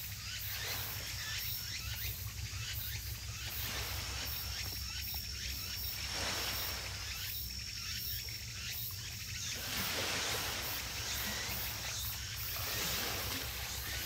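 Insects chirping in a steady, regular pulse over a constant low rumble.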